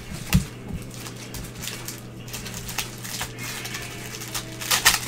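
Trading cards being handled in gloved hands: cards shuffled, slid and tapped against each other and the table. There is a sharp click about half a second in and a quick run of louder clicks near the end, over a steady low hum.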